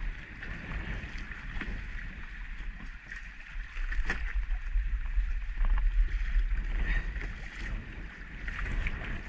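Wind buffeting the microphone over choppy water slapping around a kayak, with a few sharp clicks, the clearest about four seconds in.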